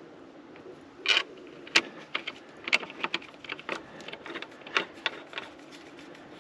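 Irregular metallic clicks and clinks from hand tools and metal fittings as a diesel fuel filter is reassembled, about a dozen sharp knocks spread over a few seconds. The engine is not running.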